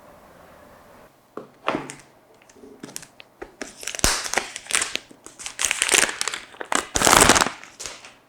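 Product packaging being crinkled and torn open by hand: irregular plastic and paper rustles that start about a second in and grow louder and denser, the longest and loudest crackle near the end.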